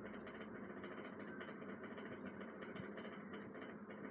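Faint steady background hum and hiss: room tone, with no distinct event.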